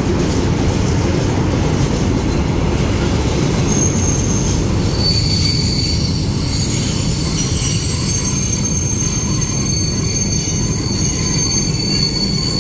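Freight train of open wagons rolling slowly: a steady rumble of steel wheels on the rails. From about four seconds in a thin, high wheel squeal joins it and keeps going.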